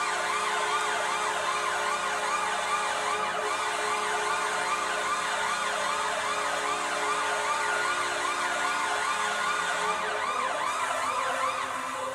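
Washington Capitals goal horn: a steady horn blast with a siren wailing fast up and down over it, about two sweeps a second, turning into a slower rising wail near the end.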